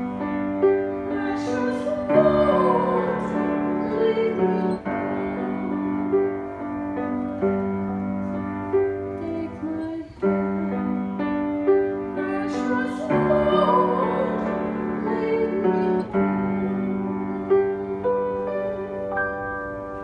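Boston piano playing a slow hymn in sustained chords, which change every second or two; it ends on a held closing chord that fades out near the end.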